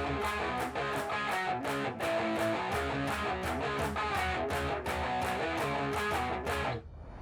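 Background music with guitar strumming over a steady beat, which drops out about seven seconds in, leaving a faint rising sweep.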